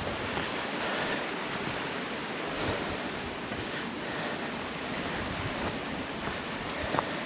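Waterfall rushing steadily, an even wash of falling water, with one short click near the end.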